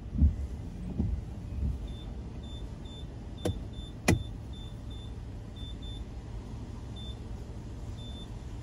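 Car on the move in the rain, heard from inside: a steady low road rumble with a few thumps in the first two seconds. Two sharp clicks come about three and a half and four seconds in, and faint short high chirps recur throughout.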